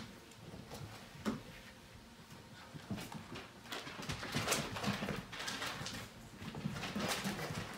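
Five-week-old Portuguese Water Dog puppies playing: soft scuffling and scrabbling of small paws on a padded mat and a plastic slide, sparse at first and busier from about three seconds in.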